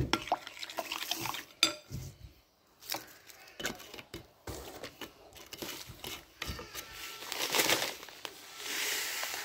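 A spoon clinking and scraping against a glass bowl while stirring a vinegar dipping sauce, with scattered clicks. Over the last two seconds or so, a plastic packet rustles and crinkles as it is opened.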